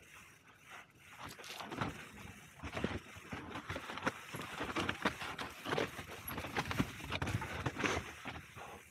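Mountain bike rolling down a rocky dirt singletrack: tyres crunching over dirt and rock, with irregular knocks and rattles from the bike as it hits rocks and drops, coming thicker after the first second or so.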